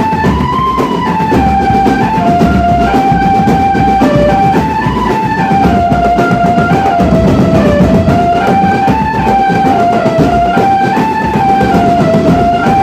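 Drum band playing: a simple melody line stepping from note to note over dense, continuous drumming.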